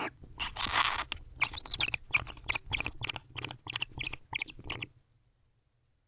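Barn owls at very close range making a rapid series of short, raspy sounds: one longer rasp near the start, then about a dozen short ones at two or three a second, stopping about five seconds in.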